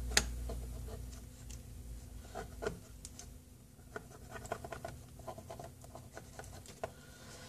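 Faint, irregular light clicks and scratches of small laptop parts and tools being handled on a workbench.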